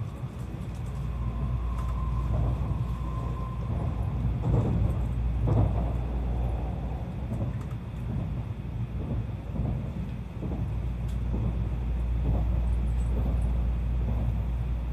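Tokaido Shinkansen train running, heard inside the passenger cabin as a steady low rumble that swells and eases, with a faint high whine in the first few seconds.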